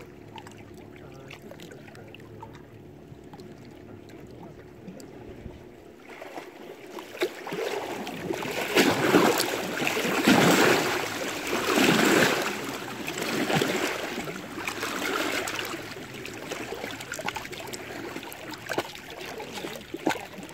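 Choppy lake water lapping and splashing against shoreline rocks. It starts faint, rises in several surges from about six seconds in, and is loudest in the middle.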